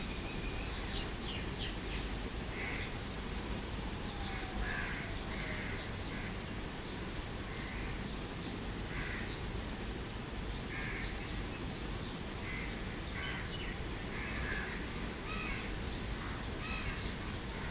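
Birds calling repeatedly, a short call every second or two, with a few quick high chirps about a second in, over steady outdoor background noise.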